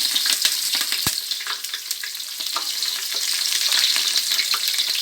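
Whole spices and a handful of onion sizzling in hot oil in a pan, stirred, with many small clicks of the spoon against the pan and one sharper knock about a second in.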